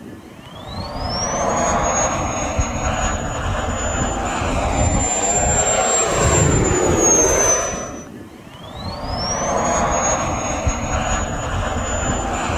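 Electric ducted fan of a Kobuz RC glider (folding-blade impeller, Jet 90 unit on 12S) spooling up to a high, steady whine over a rushing roar of air as the model flies past. About eight seconds in, the whine sags and cuts off as the throttle is closed, then rises again straight away and holds.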